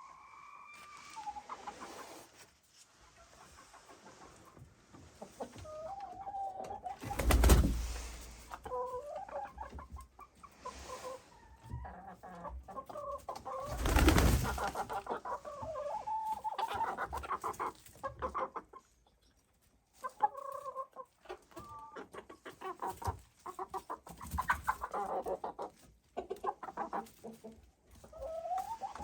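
Chickens clucking, with many short calls throughout. Two loud whooshes of noise cut across them, one about a quarter of the way in and one near the middle.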